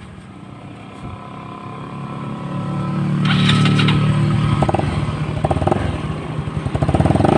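Yamaha Mio Sporty scooter's single-cylinder four-stroke engine running through a newly fitted Hero racing pipe (version 4) aftermarket exhaust. It idles, is revved up about two seconds in and held, then gets several short throttle blips near the end.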